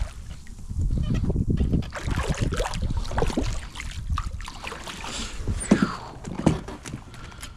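A hooked sheepshead splashing and thrashing at the water's surface right beside a kayak, with a sharp knock a little before six seconds in.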